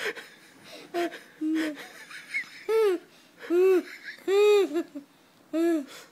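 A baby vocalizing in a string of short calls, about one a second, each rising then falling in pitch.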